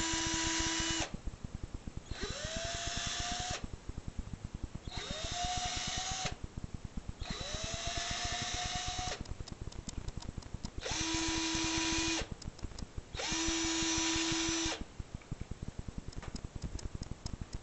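Cordless drill driving wood screws into a wooden door jamb to fasten the gate's clasps, run in six short bursts of one to two seconds each. On some runs the pitch climbs as the motor spins up. Small clicks and handling noises fall between the runs.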